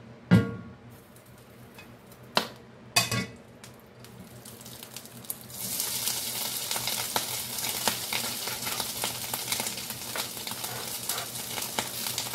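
Three sharp knocks of utensils against the cookware, then thinly sliced ribeye steak frying in hot oil in a cast iron skillet: a steady, crackling sizzle that starts about five and a half seconds in.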